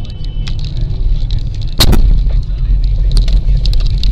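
Road noise of a car driving on a rutted, icy road, heard from inside the cabin: a steady low rumble with scattered clicks. A single sharp bang comes about two seconds in, after which the rumble is louder.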